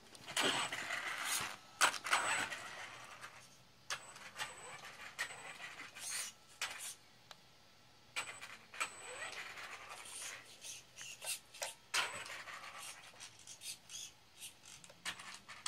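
Radio-controlled monster truck driven across a rug in short bursts: its motor whirring and tyres scuffing the carpet, with scattered clicks and knocks.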